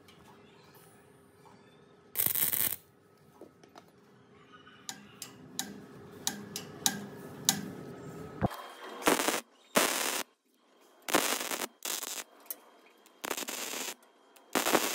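MIG welder tack-welding a steel bracket onto a steel tube frame: after a few faint clicks of hand-tool work, a series of short crackling welding bursts begins about halfway in, each under a second long.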